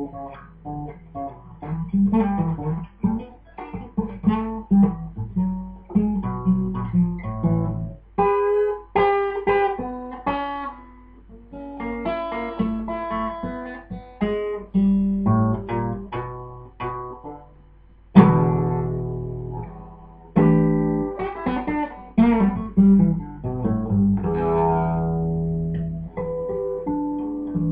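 Solo acoustic guitar playing an instrumental passage: picked single notes and chords, each ringing and fading, with one loud chord struck about eighteen seconds in.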